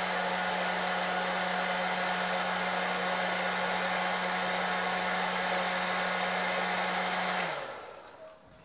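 Hair dryer blowing steadily, with a low hum under the rush of air, then switched off near the end and winding down.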